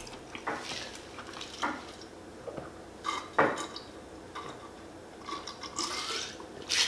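A glass mason jar holding a cold drink with ice is picked up and drunk from: scattered light clinks and knocks of glass and ice, with drinking sounds near the end.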